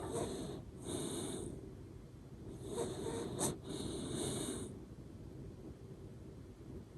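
Sleeping Shiba Inu snoring through its nose with high whistling 'pū pū' sounds on its breaths, about four in the first five seconds, then fainter breathing.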